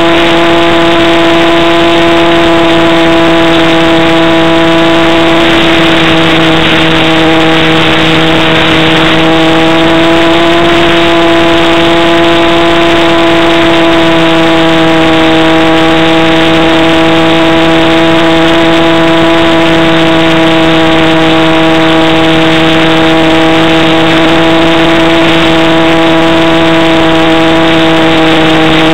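Motor and propeller of a radio-controlled model Cessna in flight, heard close up from a camera on board: a loud, steady drone whose pitch wavers only slightly, over a hiss of air noise.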